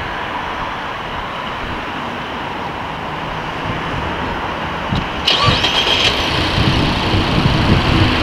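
Mazda 6's 2.0-litre four-cylinder petrol engine starting about five seconds in: a short whine as it cranks, then it catches and settles into a steady idle.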